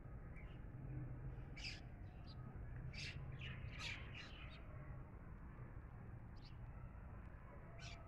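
House sparrows chirping in short, scattered calls, bunched together between about one and a half and four and a half seconds in, with a couple more near the end, over a steady low background noise.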